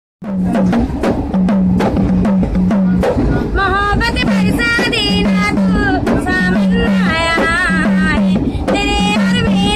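A girl singing a Hindi film song to her own beat on a small hand-held frame drum (dafli). The drum rhythm starts alone, and her voice comes in about three seconds later.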